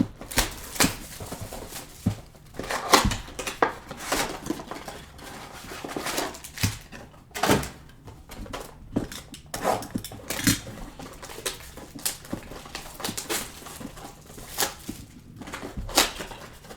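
Trading card blaster boxes and packs being handled and opened: scattered sharp clicks and taps with crinkling rustles between them.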